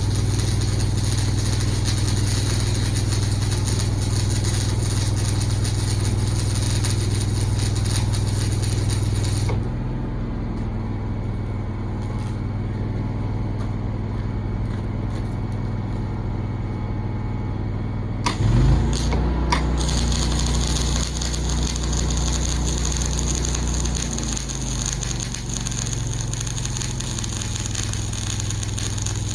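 An engine running steadily, its sound changing abruptly about a third of the way in and again a little past halfway, with a brief clatter around the second change.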